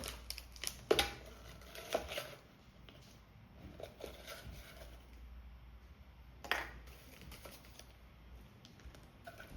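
Small plastic toy pieces and packaging being handled: a few light clicks and knocks with faint rustling, the sharpest about a second in, again about two seconds in, and near six and a half seconds.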